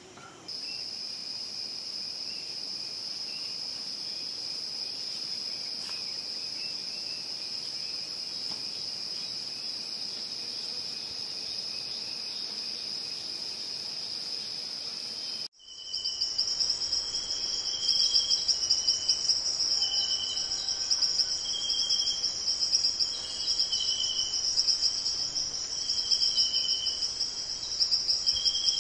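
Amazon rainforest insects calling: a steady high-pitched drone, then, after a sudden cut about halfway through, a louder pulsing chorus with several overlapping trills at different pitches.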